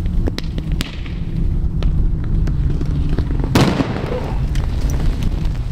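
Thermite burning over ice with a steady low rumble and scattered sharp pops, then, a little past halfway, one sharp explosion as the molten iron meets the ice, trailing off into crackling.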